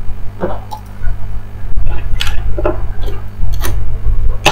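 Handling noise from a charger and its cable being connected to a device: a scatter of small clicks, taps and rubs over a steady low hum.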